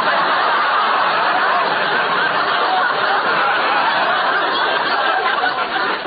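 Studio audience laughing loudly at a punchline, one long wave of laughter that eases off a little near the end.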